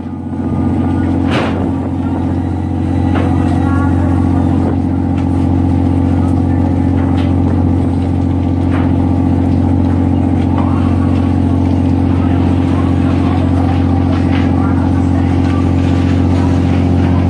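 A boat's engine running steadily with a constant low drone, with a few sharp knocks or clanks on top.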